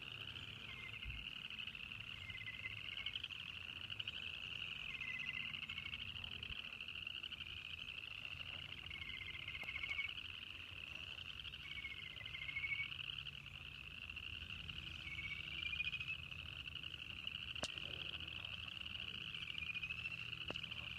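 A dense spring chorus of frogs trilling without a break, with short rising calls standing out every few seconds.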